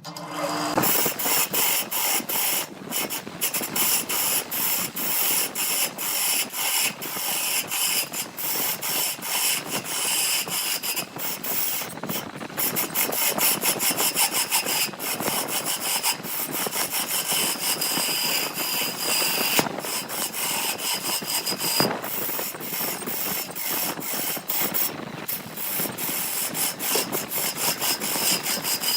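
Wood being cut by a power woodworking tool: a steady, dense stream of rapid ticks over hiss that starts suddenly.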